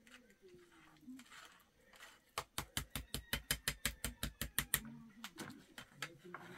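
A rapid run of about twenty sharp knocks, some eight a second, lasting about two and a half seconds, with a short voice-like call before it.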